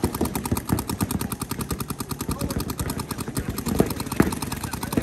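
Paintball markers firing in rapid, steady streams, many shots a second, with a couple of louder knocks near the end.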